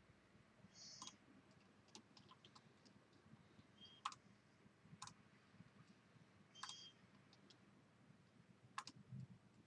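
Faint, scattered clicks of a computer mouse against near silence, a handful of sharper clicks a second or two apart.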